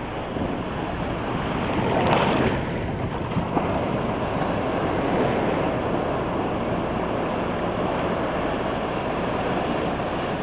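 Small surf breaking and washing up on a sandy beach: a steady rushing wash of water, with a louder surge about two seconds in.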